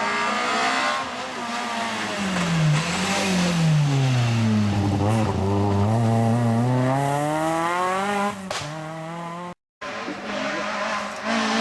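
Rally car engine slowing for a corner with its pitch falling, then accelerating hard with the pitch climbing steadily for about four seconds before dropping sharply. A momentary dropout follows near the end, then engine sound resumes.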